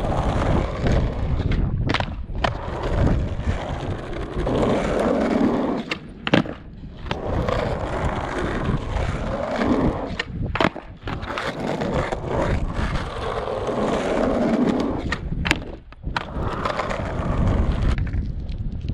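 Skateboard wheels rolling on a concrete bowl. The rolling noise swells and fades every few seconds as the skater carves the walls, with several sharp knocks of the board on the concrete.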